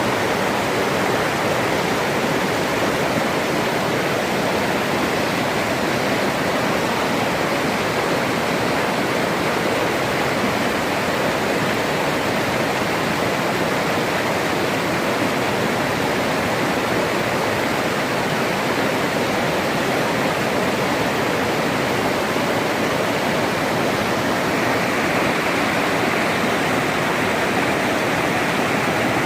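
Waterfall: a steady, loud, unbroken rush of falling water.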